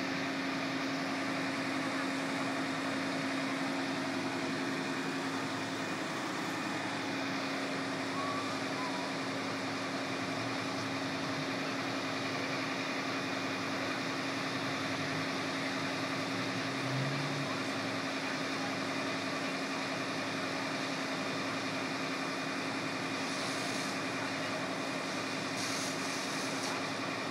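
Steady drone of an idling vehicle engine with a constant low hum.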